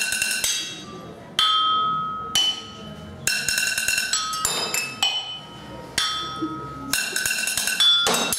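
Drumsticks striking porcelain tableware mounted as a drum kit: teapot, cups, saucers and plates. Each hit is a sharp clink that rings on at a clear pitch and fades. The pieces ring at different pitches, and the hits come irregularly, some in quick flurries.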